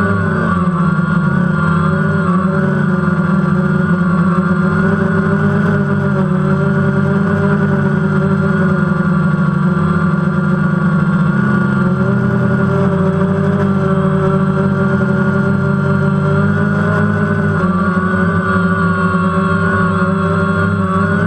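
DJI Phantom quadcopter's electric motors and propellers, heard from the GoPro mounted on it: a loud, steady buzzing whine whose pitch wavers a little as the drone flies.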